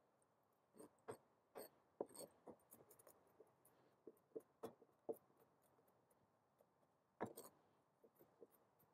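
Vegetable cleaver chopping garlic on a plastic cutting board: quiet, irregular knocks of the blade striking the board, in a run of chops, then a pause of about two seconds before a last couple of chops near the end.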